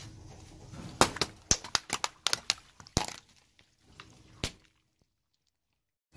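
Car tyre rolling over a row of water-filled long balloons, bursting them one after another: a quick run of about a dozen sharp pops starting about a second in, and a last pop a little later.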